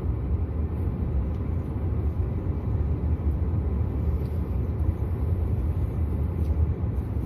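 Steady low rumble of a car heard from inside the cabin, with a few faint ticks over it.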